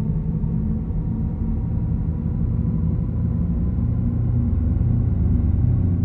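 Audi RS e-tron GT's synthesized electric driving sound at about 70 km/h: a deep, steady electronic hum with layered low tones, made by the car's sound system to give the silent electric drive an audible character.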